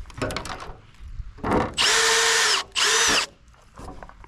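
Power drill run in two short bursts, the first about a second long and the second shorter, its motor whine rising as it spins up and dropping as it stops. Light knocks and handling noise come before.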